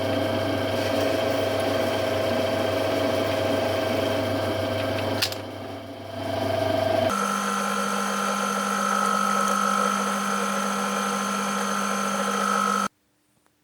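Metal lathe running with a steady machine hum and a sharp click about five seconds in. The sound then switches abruptly to a different, higher steady whine, which cuts off suddenly near the end.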